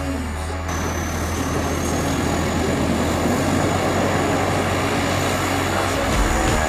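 Small foam RC plane's electric motor and propeller running, with a thin whine that slowly rises in pitch as the plane speeds up rolling along a rough concrete strip.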